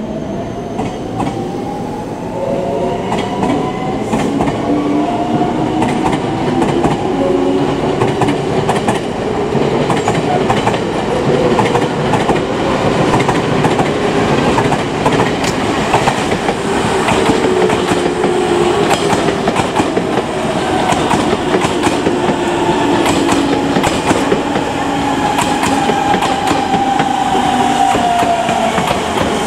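Electric commuter trains running through a station: a steady running rumble with wheels clicking over rail joints and a whine that slowly rises and falls in pitch. Near the end a Nankai 1000 series train comes past close by, its whine falling.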